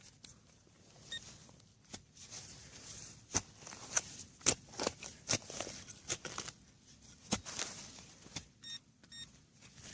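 Digging in soil: scraping and a series of sharp knocks and clicks as dirt is worked out of a hole. Near the end, a few short electronic beeps from a metal detector checking the hole for the target.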